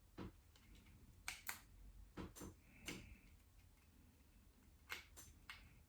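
Faint, scattered light clicks and taps, several in close pairs, from handling an iPad mini and its screen during reassembly.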